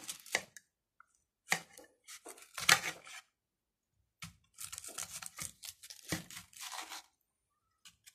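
Kitchen knife cutting through a raw onion held in the hand over a plate: a few short bursts of slicing, then a longer run of cutting for about three seconds, with silent pauses between.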